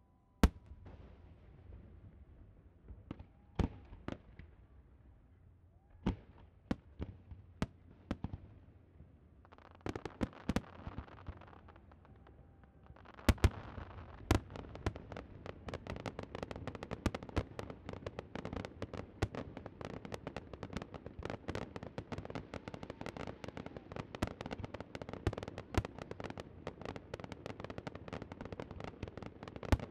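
Fireworks display: single sharp shell bursts a second or so apart, with a hissing stretch about ten seconds in. Then, after two loud bangs at about thirteen seconds, dense rapid crackling runs on without a break.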